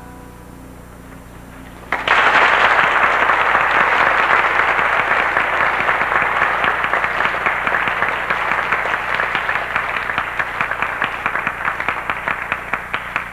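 The last handbell chord dies away faintly, then about two seconds in the audience bursts into applause. The applause slowly thins, breaking into separate claps near the end before it stops.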